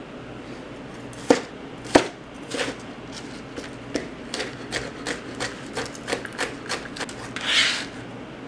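Chef's knife dicing jalapeño strips on a thin plastic cutting mat: a string of sharp chops, settling into about three a second, then a short scrape near the end as the blade gathers the diced pieces together.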